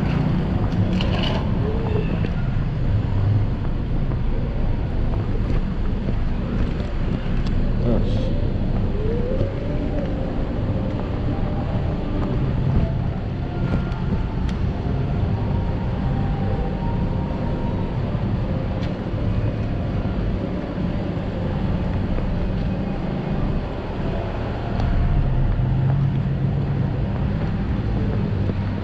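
Steady wind rumble on a chest-mounted action camera's microphone while riding an electric scooter slowly down a street, with street traffic noise and a few faint voices around.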